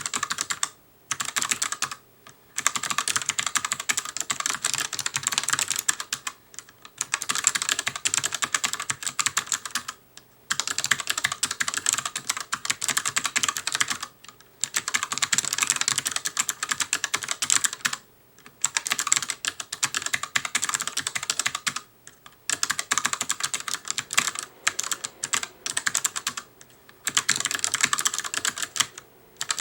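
Fast typing on an ELECOM ARMA TK-ARMA50BK low-profile mechanical keyboard with clicky switches: dense runs of crisp key clicks, broken by short pauses every few seconds.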